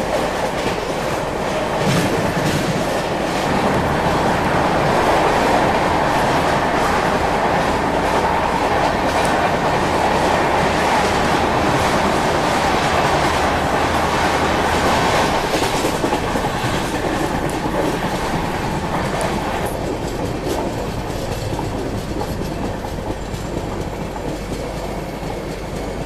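Mahanagri Express passenger train running on the line, with a steady rumble of wheels on track and repeated clickety-clack over rail joints. The sound grows gradually quieter over the last several seconds.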